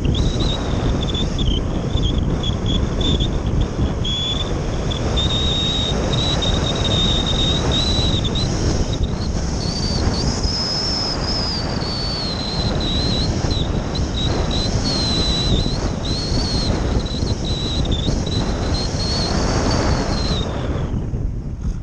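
Wind rushing over the microphone of a camera riding on a radio-control glider in flight, with a thin high whistle on top that wavers up and down in pitch and fades out near the end.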